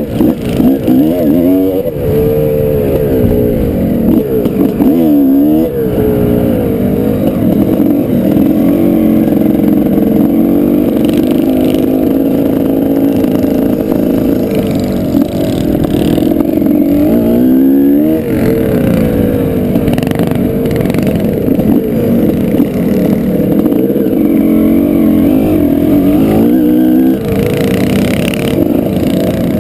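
Mini bike engine running hard under racing load. The revs drop and climb again several times as the throttle is eased and reopened.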